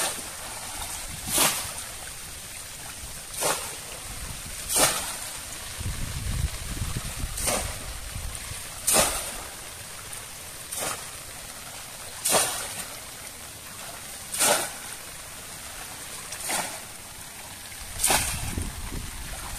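A conical bamboo plunge-basket fish trap is slapped down into shallow river water over and over: a sharp splash every one and a half to two seconds, about eleven in all, with water sloshing between them.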